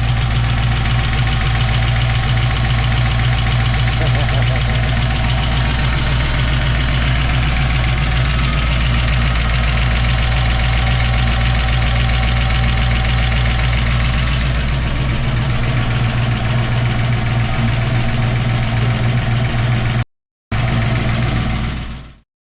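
Engine fitted with link-bar lifters idling steadily after a cold start, its idle settled down from the fast idle. The sound drops out briefly near the end and then cuts off abruptly.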